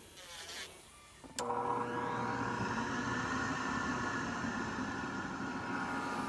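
Electric nail drill with dust extraction switched on about a second and a half in, then running with a steady hum.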